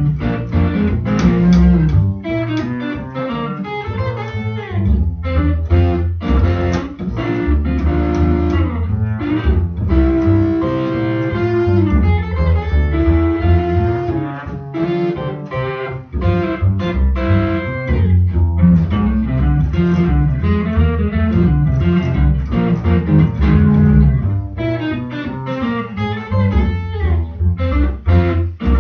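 Electric guitar and pizzicato double bass playing together: the guitar picks quick runs of single notes over a plucked bass line.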